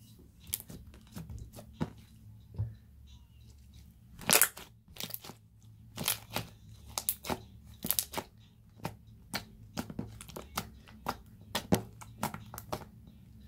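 Wet, sticky slime with small beads in it being pressed, stretched and peeled off a tabletop by hand, making irregular sharp sticky pops and crackles, one louder pop about four seconds in. The slime is sticky from the water worked into it.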